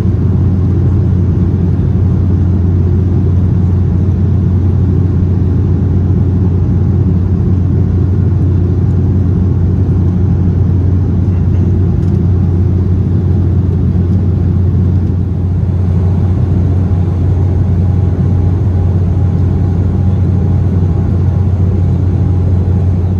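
Cabin noise of an Embraer E190 jet in climbing flight, heard from a window seat: a steady, loud low drone of its GE CF34-10E turbofan engines and the airflow over the fuselage. A faint steady whine joins about two-thirds of the way through.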